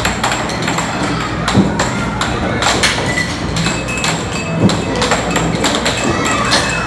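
Air hockey puck and plastic mallets clacking sharply and irregularly as the puck is struck and bounces off the table rails, over loud arcade background music and chatter.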